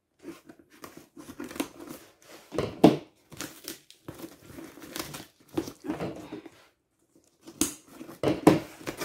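Scissors snipping the packing tape on a cardboard shipping box while the box and its flaps are handled and pulled open: irregular crinkling and rustling with a few sharper knocks, loudest about three seconds in and again near the end.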